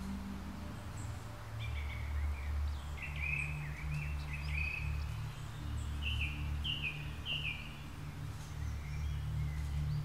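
Birds chirping in short repeated calls, in clusters about two seconds in and again around six to seven seconds, over a low steady drone of background music.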